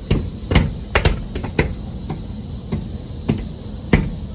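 Hands slapping and patting on a glass sliding door: a run of sharp, irregular knocks, about two or three a second.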